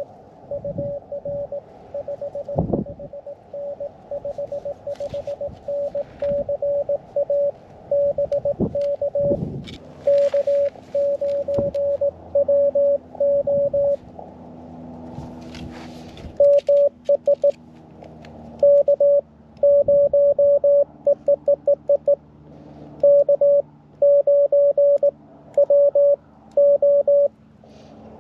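Morse code (CW) tones from a QRP ham radio, one steady note keyed on and off in dots and dashes. A quieter run of keying fills about the first half; after a short pause with hiss, a louder run follows. A few dull thumps and clicks sound underneath.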